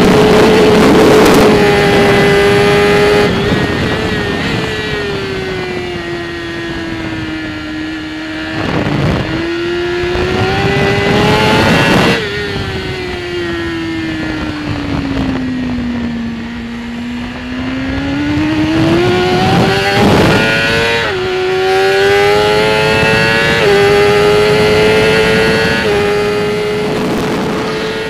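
2015 BMW S1000RR inline-four engine at racing speed heard from on the bike, with wind rushing over the microphone. The engine note falls slowly as the bike slows for a long corner, then climbs again as it accelerates out, dropping in pitch three times near the end as it shifts up.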